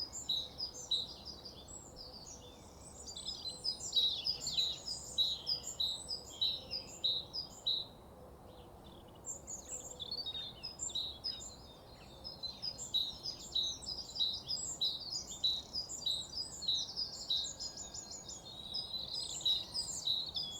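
Many songbirds singing at once in a morning chorus: dense, overlapping high chirps and trills, easing briefly about two seconds in and again about eight seconds in.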